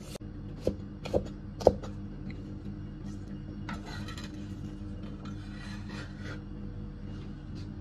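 Chinese cleaver chopping red onion on a cutting board: four sharp knife strikes on the board in the first two seconds, then the blade scraping the diced onion across the board twice. A steady low hum runs underneath.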